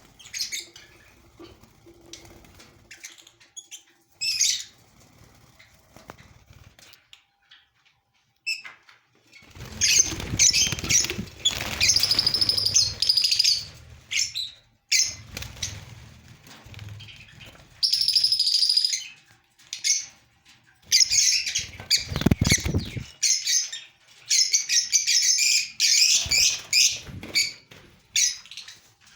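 Fischer's lovebirds chattering in irregular bursts of shrill chirps, with bouts of wing flapping.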